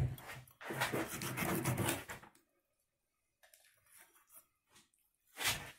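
A heavy kitchen knife rasping along a sea bass's backbone as a fillet is cut free. There is a short stroke at the start, then a longer one lasting about a second and a half, a quiet spell, and another short stroke near the end.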